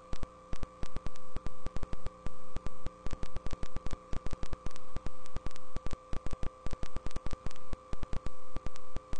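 Loud static hiss on the audio feed, cutting in and out abruptly several times a second, over a steady electrical hum. This is an interference or signal-dropout fault in the sound system, not a sound in the room.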